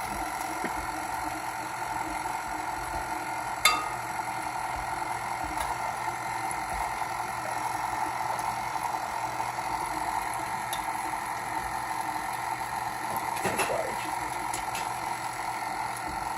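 KitchenAid stand mixer running steadily, its beater shredding chicken in the bowl, with a steady motor whine. One sharp click about four seconds in.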